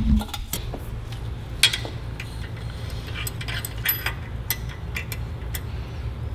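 Light metallic clicks and clinks of hand tools and small engine parts being handled on a steel workbench, irregular and scattered, over a low steady hum.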